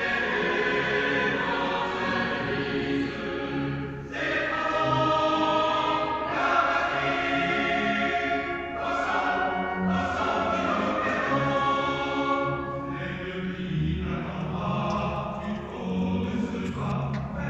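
Choir singing an operatic passage in a large stone chapel, in phrases with short breaks between them.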